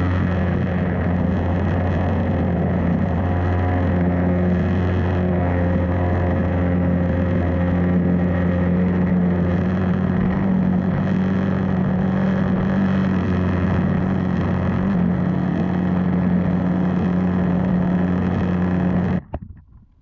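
High-pressure washer lance with a turbo nozzle blasting water onto terracotta roof tiles to strip lichen: a steady hum with the hiss of the spray. It cuts off suddenly near the end.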